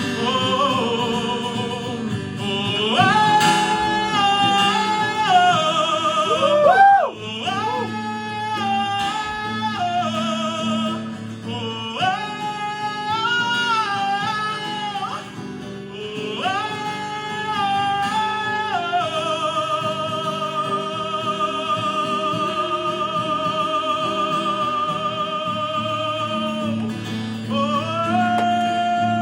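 Live wordless singing, a sliding vocal line with vibrato over a steady instrumental accompaniment, settling into one long held note about two-thirds of the way through.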